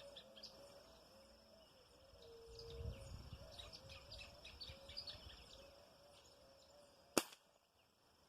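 A single sharp shot from a 5.5 mm air rifle about seven seconds in, fired at a dove, over steady chirping of small birds.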